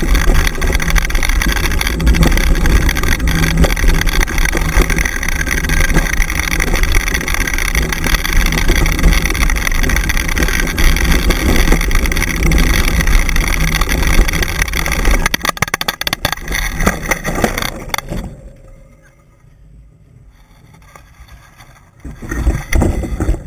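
Rumble and rattle of a dog-drawn dryland rig rolling fast over a dirt trail, with wind on the microphone. About 16 seconds in it breaks into crackles and dies away, then a short flurry of rustling near the end as the camera ends up in long grass.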